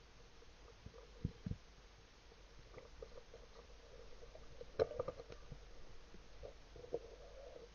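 Muffled underwater sound picked up by a submerged camera: a faint steady hum with two dull thumps about a second and a half in, then a cluster of sharp clicks and knocks, the loudest sound, near five seconds in, from gear being handled underwater.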